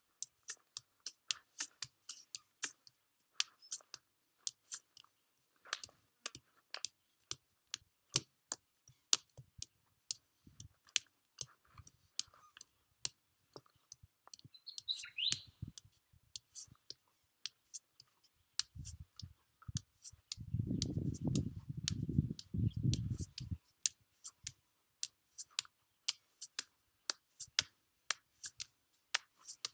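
Forearms and fists repeatedly striking a tree trunk in arm-conditioning drills: sharp, short knocks, about two or three a second. A bird chirps once about halfway through, and a low rumble comes for a few seconds about two-thirds of the way in.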